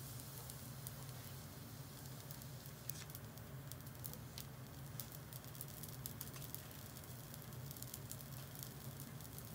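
Miso-basted yaki manjū sizzling faintly on a grill, with irregular small pops and crackles over a steady low hum.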